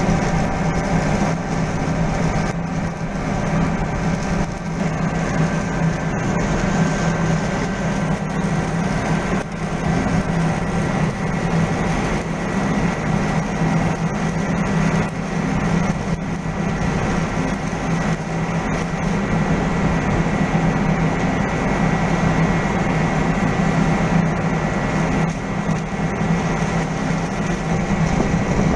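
Steady drone of heavy machinery running without a break, with a constant low hum and a faint high-pitched whine over it.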